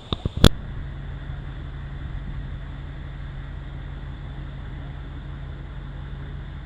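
A few quick clicks and a sharp knock about half a second in, then the steady low hum of a car running, heard from inside the cabin.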